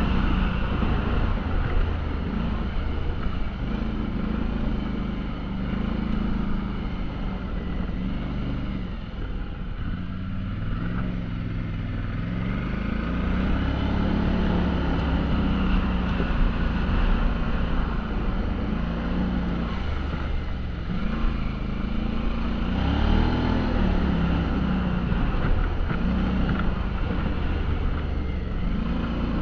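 ATV engine running during a ride, its pitch rising and falling as the throttle is worked, over steady rushing wind and terrain noise. It eases off briefly about a third of the way in, then picks up again.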